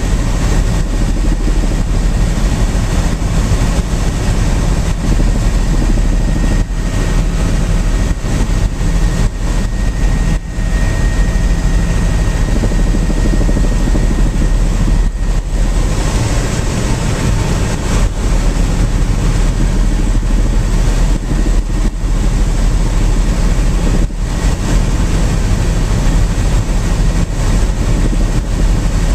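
Helicopter in steady flight, heard on board: a constant loud low drone of rotor and engine, with a faint high whine over it for the first half.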